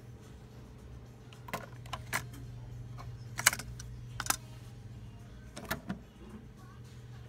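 Nakamichi 680ZX cassette deck being handled: a series of sharp mechanical clicks and clacks as the cassette door is ejected open and pushed shut again, the loudest about halfway through, over a low steady hum.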